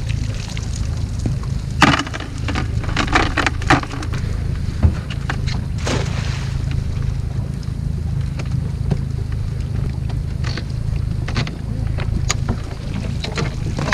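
A cast net thrown from a small boat hits the water with a splash about six seconds in; before and after it come sharp knocks and water splashes as the dripping, weighted net is gathered and its line hauled back. A steady low rumble runs underneath.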